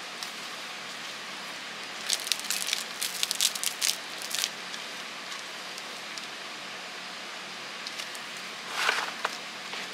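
Plastic wrapping and cardboard packaging being handled: a cluster of sharp crinkles about two to four seconds in, then a brief swish of rustling near the end, over a steady hiss.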